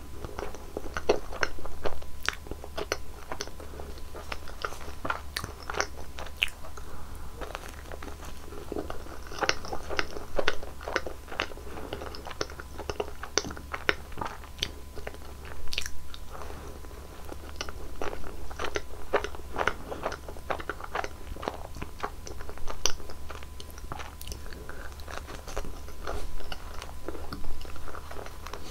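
Close-miked biting and chewing of Nutella-spread rolls: an irregular, continuous run of short crisp bites and chewing clicks, over a faint steady low hum.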